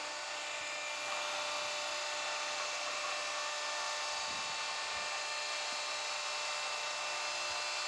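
Small electric motor running at a steady pitch: an even whir with a faint high whine, and a few soft clicks near the middle.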